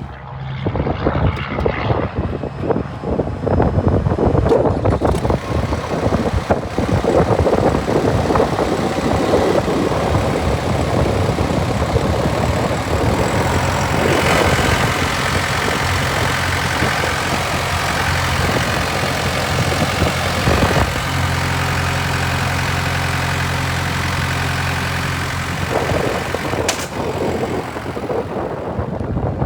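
Mustang 1650R skid steer loader's engine running, with irregular clatter over it through roughly the first half. The engine then settles into a steadier, even drone for the later part.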